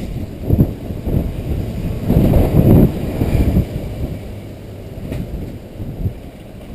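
Typhoon wind buffeting the microphone as a low rumble, swelling into louder gusts about half a second in and again between two and three and a half seconds in.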